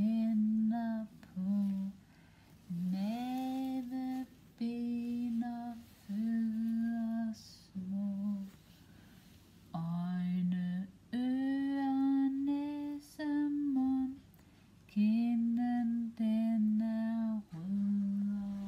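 A woman humming a slow, simple children's-song melody without words, in short phrases of held notes with brief pauses between them.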